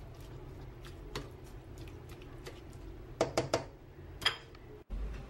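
Cooking utensil stirring spinach into a cream sauce in a pan: soft wet stirring with scattered light clicks, then a few louder ringing clinks against the pan about three seconds in and once more a second later.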